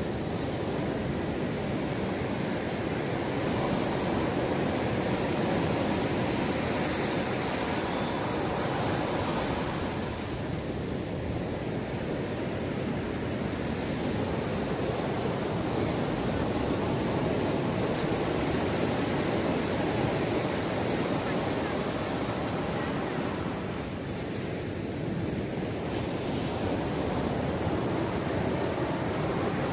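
Ocean surf washing onto a beach: a continuous rush of breaking waves that eases slightly twice before swelling again.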